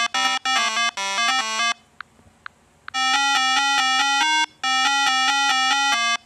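Bright synthesized electronic melody, like a ringtone. It plays in quick stepping notes, stops for about a second with three faint ticks, then resumes about three seconds in with a slower phrase of longer notes that repeats.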